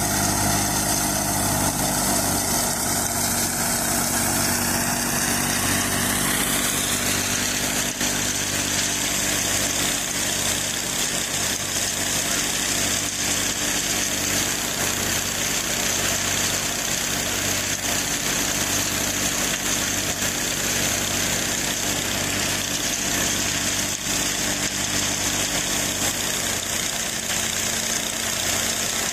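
Fiat 480 tractor's three-cylinder diesel engine running steadily under load, driving a thresher through its PTO, with the thresher drum's continuous whirring rattle over it. A whine rises in pitch over the first several seconds, then holds steady.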